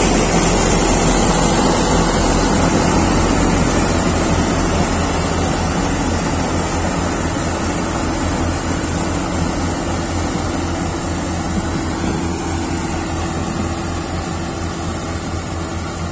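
Kartar 4000 combine harvester running while it harvests paddy: a steady machine drone of engine and threshing gear with a pulsing low hum. It grows slowly fainter as the harvester moves away.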